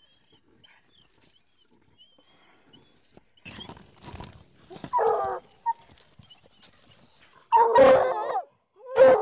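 Hunting hounds barking at a possum cornered in a rock crevice while they dig at it. After a quiet start there is some scratching, a bark about five seconds in, then two louder barks near the end.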